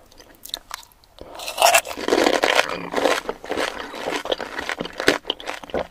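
Close-miked mouth sounds of eating a whole pani puri: a few soft clicks, then from about a second in, dense crackling as the crisp, water-filled puri shell is crunched and chewed.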